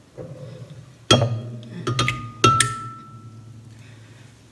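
A spoon knocking against a glass blender jar while cream is scraped into it: four sharp clinks about a second in, the last leaving a clear glass ring that fades over about a second.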